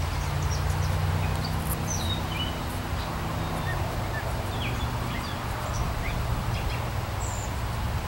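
Wild birds chirping and calling in short scattered notes over a steady low motor drone, the upper part of the drone dropping away about four seconds in.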